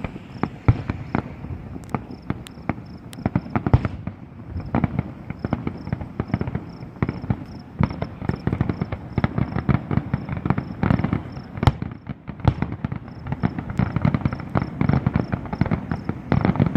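Fireworks display at a distance: a dense, continuous run of booms and crackling pops with no let-up. A cricket chirps steadily beneath it.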